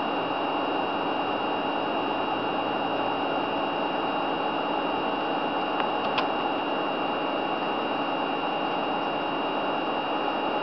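Steady hiss with a faint steady high whine running through it, and one small click about six seconds in.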